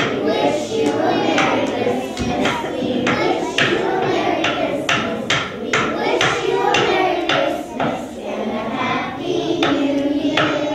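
A group of young children singing a Christmas song together, with sharp claps keeping a steady beat about twice a second.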